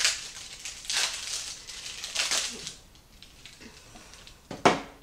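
Plastic wrapper crinkling in three bursts as rolled refrigerated pie crust is pulled out of its package, followed by one sharp thump near the end.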